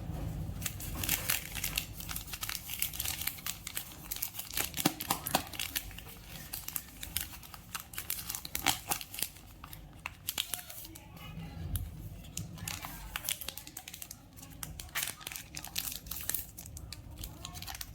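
Plastic candy wrappers crinkling and tearing as candy is unwrapped by hand: dense, irregular crackling, busiest in the first half and thinning out later.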